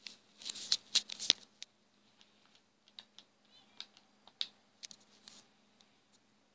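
Handling noise on a touchscreen device, picked up by its own microphone: a quick cluster of scratchy clicks and taps about half a second to a second and a half in, then scattered single taps.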